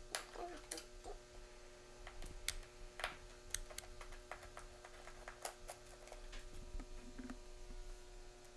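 Faint, scattered small clicks and ticks of a screwdriver working out the T10 Torx screws of an iMac's LCD panel, over a steady low hum.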